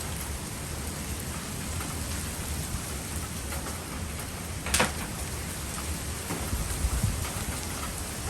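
Steady rain falling and pattering on surfaces, with one sharp tap about halfway through.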